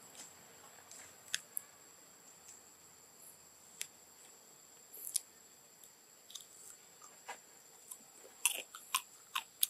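Faint, scattered sharp clicks and crackles, coming closer together near the end, over a quiet background with a thin steady high-pitched tone.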